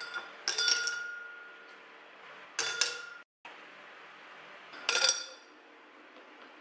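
Ice cubes dropped from an ice cube tray into a tall drinking glass: three clinking bursts about two seconds apart, the glass ringing briefly after each.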